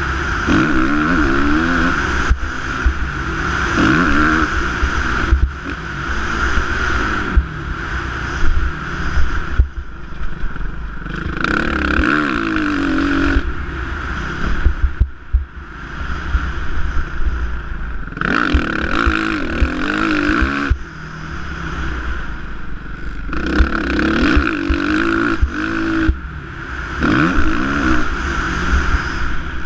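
Suzuki motocross bike's engine revving up and dropping off again and again as it is ridden around a dirt track, the throttle easing off briefly every few seconds. Wind buffets the microphone throughout.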